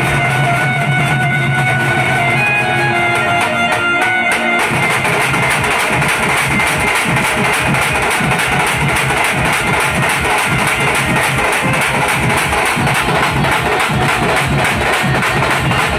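A troupe of drums beaten with sticks, playing a fast, dense rhythm. For about the first four seconds a sustained melody line plays over the drumming, after which the drums carry on alone.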